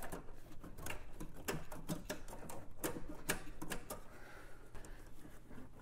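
Metal brake line tubing, a new nickel-copper line zip-tied to the old steel line, clicking and tapping irregularly against engine-bay parts as it is fed down through the engine compartment.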